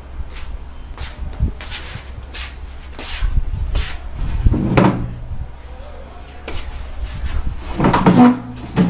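A wooden door being handled, with a run of irregular knocks and clatters over a low steady hum. A brief voice comes in about halfway and again near the end.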